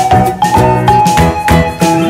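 Upbeat background music with a steady beat, bass and bright melodic notes.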